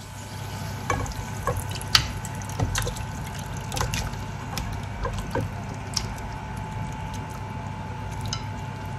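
Pork humba in its soy-and-Coke sauce bubbling in a pot as it simmers: a steady low bubbling with irregular sharp pops.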